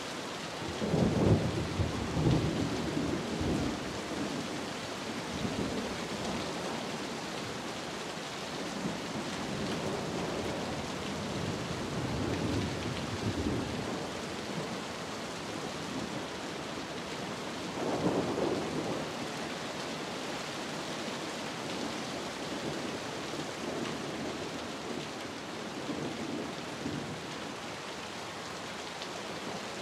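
Steady rain falling, with low rolls of thunder over it: the loudest comes about a second in and rumbles on for a few seconds, with softer rolls near the middle and about two-thirds of the way through.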